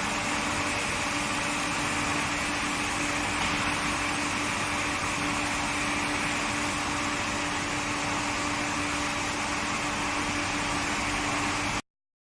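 Induction heating furnace equipment running: a steady hum with a held low tone over an even hiss. It cuts off suddenly near the end.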